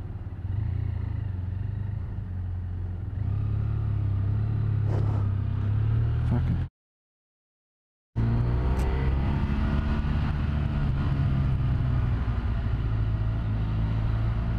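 BMW F800ST's parallel-twin engine running at low revs while riding slowly through stopped traffic, a steady low hum that grows louder about three seconds in. The sound drops out to complete silence for about a second and a half just past the middle, then the engine hum comes back.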